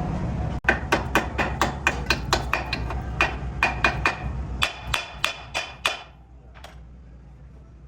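Hammer striking steel in a quick run of about twenty blows, roughly four a second, each with a short metallic ring. The blows stop about six seconds in, and a faint single tap follows. A low steady hum runs under the blows and drops away as they stop.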